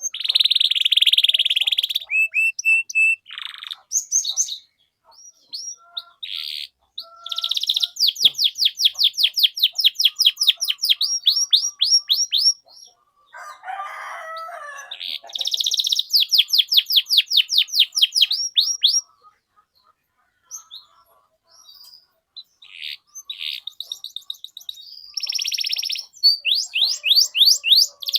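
Domestic canary singing a long 'cuit cuit' song: fast runs of evenly repeated high chirps lasting several seconds each, broken by short pauses and a few single notes, with a brief lower, rougher phrase about halfway through.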